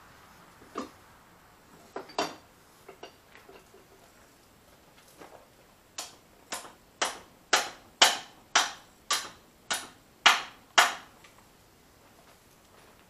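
Hammer blows on steel at a mini excavator's arm pivot, driving the loose bushing back into place over a new pipe spacer: a few scattered taps, then about ten hard blows at roughly two a second, stopping about two seconds before the end.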